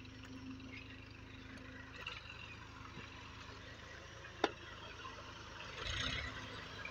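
Massey Ferguson tractor engine running steadily at low revs, with spades scraping through a trolley-load of manure. A single sharp knock comes a little after the middle, and a louder rough burst of noise about six seconds in.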